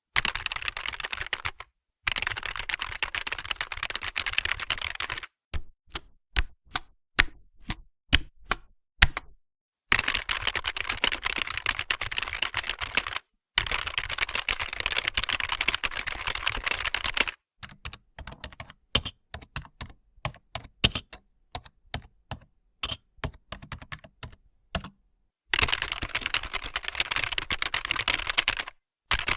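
Typing on a computer keyboard: stretches of fast, continuous typing alternate with slower passages of separate keystrokes. The passages are divided by short gaps of dead silence.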